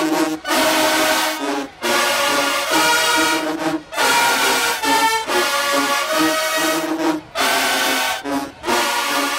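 Marching band brass section playing a loud, punchy tune in short phrases broken by brief stops, trombones and trumpets in front.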